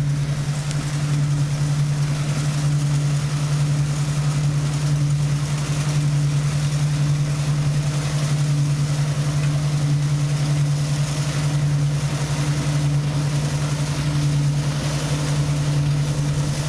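Combine harvester running steadily while harvesting grain: a constant low engine drone that does not change.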